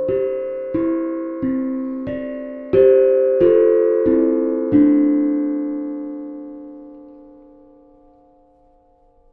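11.5-inch, ten-note steel tongue drum played one note at a time: eight notes at an even, unhurried pace, then the final notes ring on and fade away slowly.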